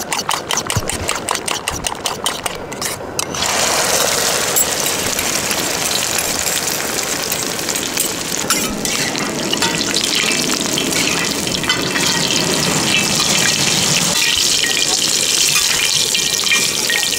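A spoon beating eggs and chopped vegetables in a steel bowl, with rapid clinking strokes. About three seconds in, the mix is poured into a wok of hot oil and sizzles loudly, and the Thai-style omelette goes on deep-frying steadily.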